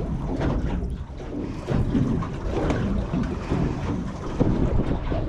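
Wind rumbling on the microphone over water slapping against a boat, with scattered irregular knocks.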